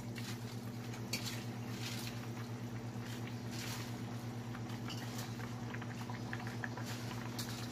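Pot of pork soup simmering on the stove: soft bubbling and small pops over a steady low hum. Near the end, a light rustle as pechay leaves are laid into the pot.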